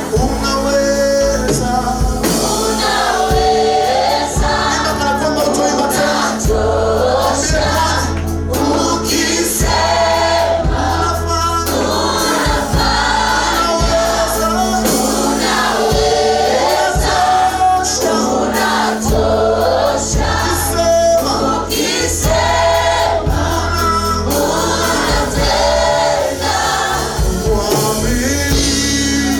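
A choir singing a gospel worship song to a band with bass and drums.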